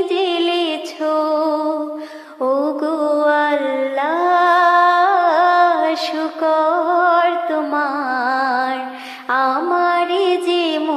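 A woman's voice singing a Bengali Islamic devotional song (gojol), unaccompanied, in long held and ornamented notes with brief breaks between phrases.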